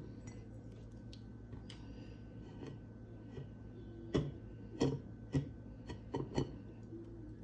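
Rim of a large glass goblet turned upside down and twisted in a plate of salt: a gritty rubbing, with a few sharp clicks of glass against the plate in the second half.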